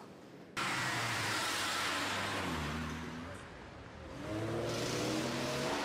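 A car driving fast. Its engine noise cuts in suddenly under a second in, drops away around the middle, then the revs climb again as it accelerates.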